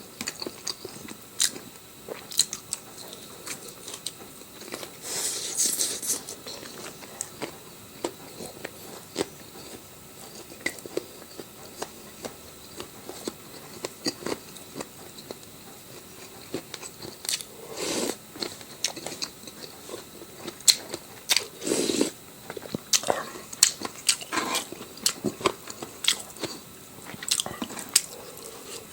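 Close-up eating sounds: chewing and biting with crunches and many scattered wet clicks and smacks, a few louder bites standing out.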